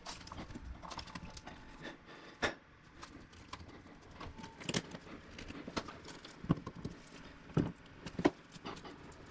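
Irregular light clicks and taps of tiles, plastic tile-levelling clips and spacers being handled and adjusted, with a few sharper knocks through the middle and latter part.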